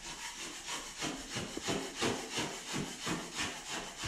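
A 4-inch metal taping blade scraping hardened joint compound off a drywall ceiling in short, light, repeated strokes, about two to three a second, shaving down a hump in the mud.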